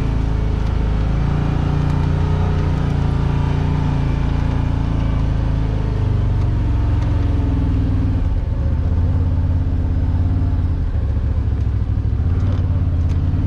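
Side-by-side UTV engine running at low speed as the vehicle crawls up rock, heard from on board, its pitch shifting a few times as the throttle changes.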